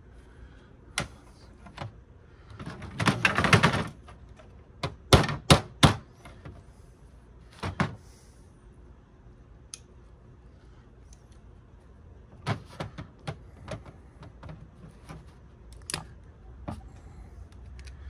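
Metal parts and hand tools clattering and knocking against a table while a DVD player is dismantled by hand. A second of rattling clatter comes about three seconds in, then four sharp knocks in quick succession, followed by scattered lighter clicks and taps.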